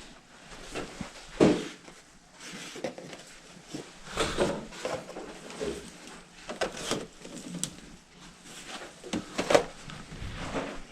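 Irregular knocks, scuffs and rustles of objects being handled and moved about, with a sharper knock about a second and a half in and another near the end.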